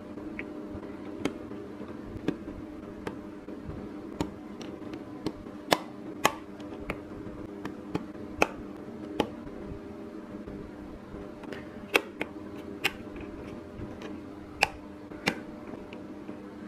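LOZ mini plastic building bricks clicking as they are pressed and snapped onto a small model by hand: sharp, irregular clicks about once a second, some much louder than others, over a steady low hum.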